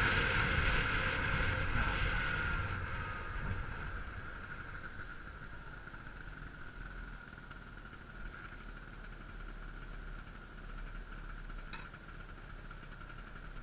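Ride on a small motor scooter heard from a helmet camera: wind and road noise with the scooter's engine, dying away over the first few seconds as the scooter slows, with the engine's note falling. It then runs on quietly and steadily as the scooter creeps up behind traffic at a red light.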